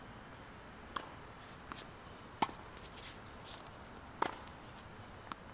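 Tennis ball struck with a racket and rallied against a practice backboard: a string of sharp pocks from racket hits, wall rebounds and court bounces, about seven in all, the loudest two about two and a half and four seconds in.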